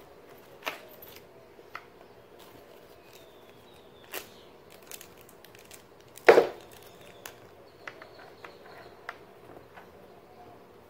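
Scattered clicks and knocks of hand tools and hardware being handled against a plastic kayak hull, with one loud knock about six seconds in.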